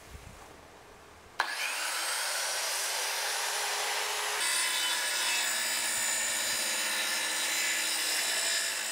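Corded handheld circular saw switched on with a click about a second and a half in, its motor spinning up with a faint rising whine, then running steadily; about three seconds later the sound turns brighter and a little louder as the blade cuts into a thin plywood sheet.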